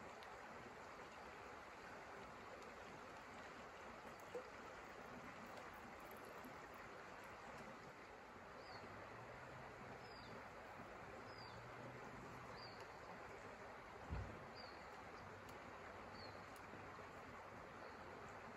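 Quiet outdoor ambience by a forest pond: a steady soft hiss, with a bird repeating a short, high, falling call about once a second, six times, in the second half. A single dull thump sounds about two-thirds of the way through.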